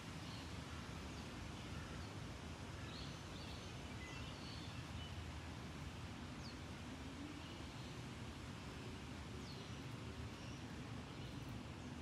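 Quiet, steady outdoor background noise with a low rumble, and a few faint, scattered bird chirps.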